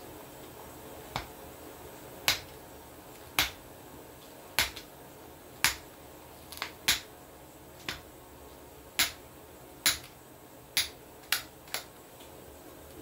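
A hand file pushed in short strokes along the edge of a forged steel knife blade. There are about a dozen brief, sharp rasps, roughly one a second.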